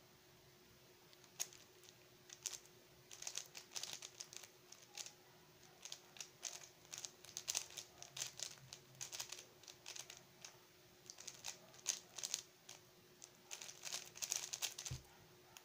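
Stickerless 3x3 speedcube being solved at speed: layers clicking and clacking in rapid flurries of turns with short pauses between them. A soft thump comes near the end.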